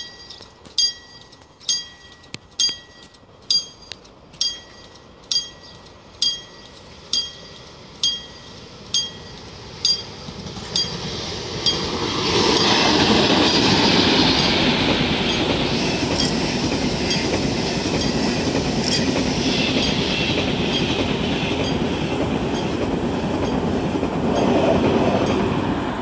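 Level-crossing warning bell dinging about once a second, then a KTX high-speed train rushing through at speed. The train's loud, steady rush builds from about eleven seconds in and drowns out the bell.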